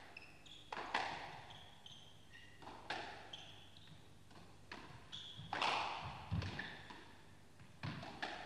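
Squash rally: sharp cracks of racket on ball and of the ball striking the court walls, echoing in the court, coming every second or two. Short high squeaks of players' shoes on the floor come between the strikes.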